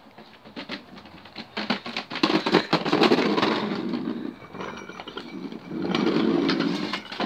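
Plastic wheels of a ride-on swing car rolling over a concrete patio: a rattling rumble in two stretches, the first about two seconds in and lasting two seconds, the second near the end lasting about a second.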